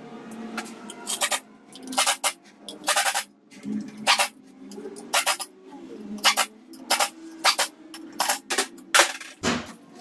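Pneumatic wrench on an air hose driving the clutch pressure plate bolts, in about fifteen short, sharp bursts, often in quick pairs.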